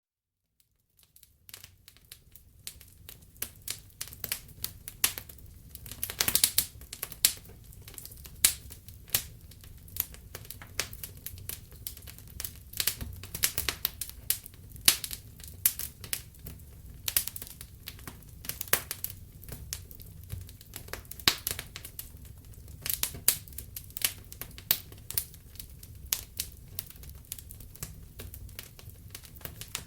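Wood fire crackling in a fireplace: irregular sharp pops and snaps of burning wood, some much louder than others, over a low steady rumble of the flames. It fades in over the first second or so.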